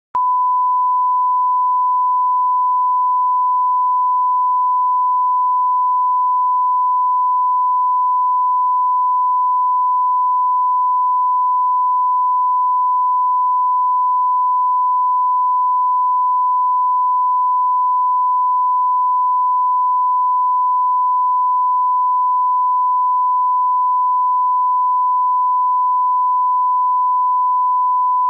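A steady test tone: one pure, unchanging high-pitched note, held loud without a break.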